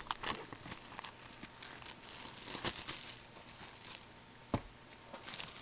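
Packaging crinkling and tearing as a sealed box of hockey card packs is opened by hand, with a sharp click about four and a half seconds in.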